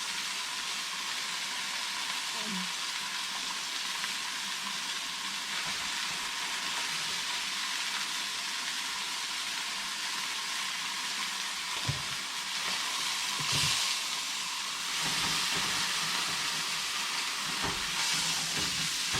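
Venison pieces sizzling steadily as they brown in a hot pan, a constant frying hiss. A couple of light knocks come around two-thirds of the way in, and the sizzle grows a little louder after that.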